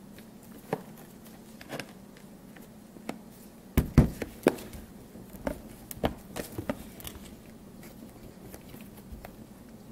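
Fingertip taps and knocks from handling a DVD box set on a wooden table: a few scattered taps, a quick cluster of louder knocks about four seconds in, then a run of lighter taps.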